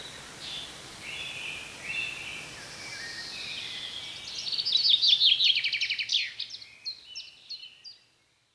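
Spring songbirds singing, several birds with whistled phrases overlapping. About halfway through, a loud, fast trill of rapid notes stands out, followed by a few shorter phrases. The sound fades out near the end.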